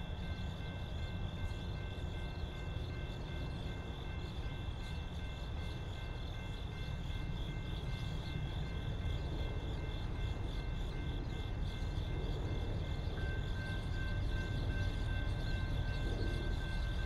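Approaching CSX freight train led by two GE ET44AH diesel locomotives: a low rumble that grows slowly louder, with a few steady high tones over it.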